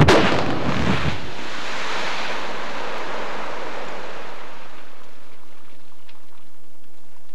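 Rock blast detonating in a rock face: a sharp bang, then a long rushing noise of broken rock and debris pouring down the face that dies away over about four seconds. A few faint ticks of stones landing near the end.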